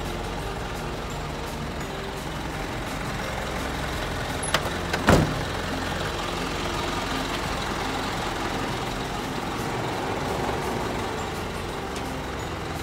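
Isuzu Forward truck's diesel engine idling steadily, with two brief sharp sounds about four and a half and five seconds in, the second the louder.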